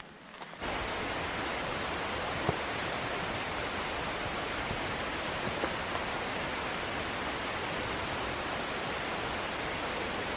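Rushing river water, a steady even rush that starts abruptly about half a second in.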